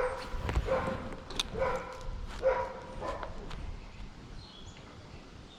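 A series of about five short animal calls, each a pitched call with overtones, in the first three seconds or so, mixed with a few sharp clicks, then faint high chirps near the end.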